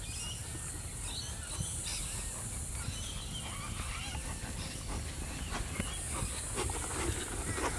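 Birds calling over a steady high hiss and a low rumble, with a few soft hoof thuds on sand from a trotting horse in the last couple of seconds.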